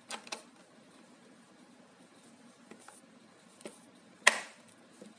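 Scattered small clicks and taps from hard objects being handled: two close together at the start, a few faint ones in the middle, and one sharper click about four seconds in.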